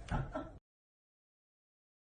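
The last of a cat's cries, cut off abruptly about half a second in, then dead silence.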